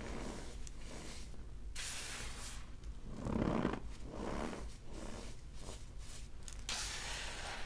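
Cornstarch and baking soda crunching and squeaking as bare hands squeeze and crumble them, in several swells, the loudest about three and a half seconds in, with a brighter hiss of rubbed powder near the end.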